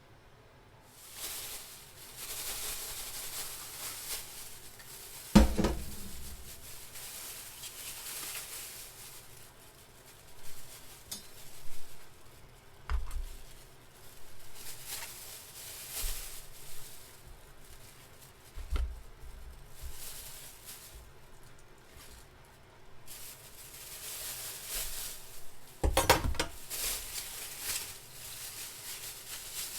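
Food sizzling in a frying pan in stretches, with pans and utensils clattering and two sharp knocks against the pan, about five seconds in and near the end.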